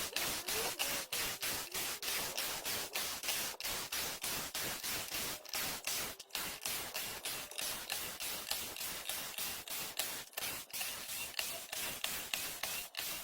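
Compact cordless power screwdriver backing screws out of a wooden pallet, its motor running in short repeated bursts, about four a second, with brief gaps between.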